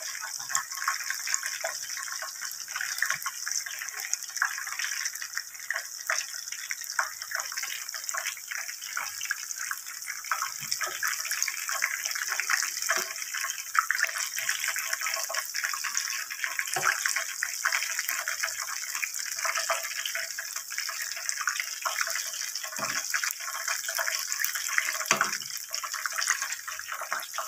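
Chicken pieces deep-frying in hot oil, a steady dense sizzle full of tiny crackles. A few short knocks of a metal slotted spoon against the pan as the fried pieces are lifted out.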